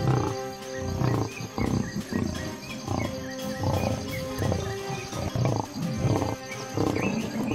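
Lion growling in a run of short rough bursts, one or two a second, over background music with steady held tones.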